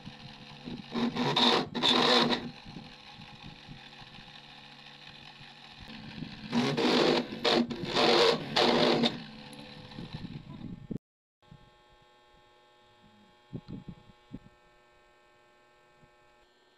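Small DC motor of a homemade mini drill press running with a steady hum, while the bit bites into a small metal plate in loud grinding bursts: two about a second in and three more between about six and nine seconds. The motor cuts off suddenly near eleven seconds, leaving a faint hum and a few light handling knocks.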